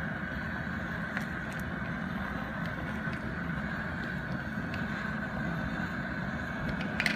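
Steady rushing noise of a gas burner under a brew kettle of hopped wort at the boil, with a few faint ticks.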